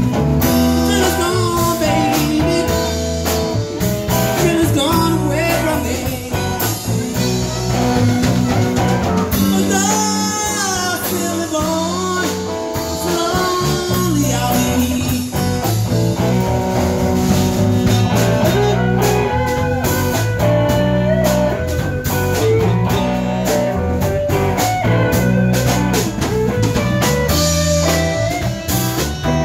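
Live blues band playing a slow blues through a PA: electric guitars, electric bass and drum kit, with an amplified harmonica played into a vocal microphone wailing over the top.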